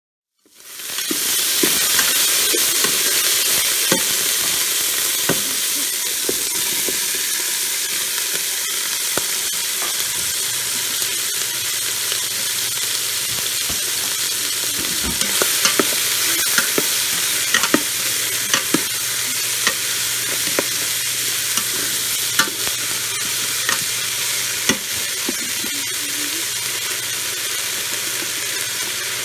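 Food sizzling as it sautés in a Ninja Foodi's cooking pot: a steady frying hiss with scattered clicks and taps of a utensil stirring it. It fades in within the first second, and a faint low hum joins about ten seconds in.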